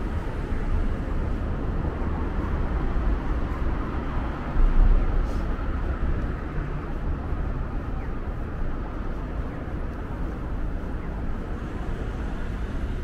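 Steady city street traffic noise with a low rumble from passing vehicles, swelling briefly louder about five seconds in.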